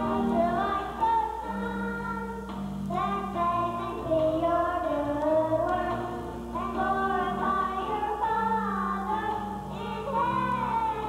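Children singing a song into hand-held microphones over an instrumental accompaniment with held bass notes.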